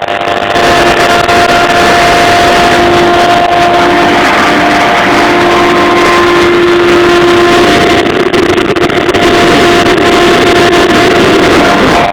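CNC router running, its spindle giving a loud steady whine over dense machining noise; about eight seconds in the lower part of the whine turns rougher and wavers.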